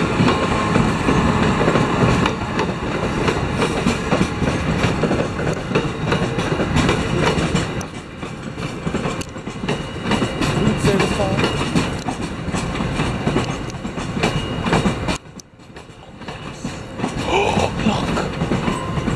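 Amtrak train hauled by an ACS-64 electric locomotive rolling past on a nearby track: a loud, steady rumble with the clickety-clack of wheels over the rails. The sound drops out abruptly near the end and then builds again.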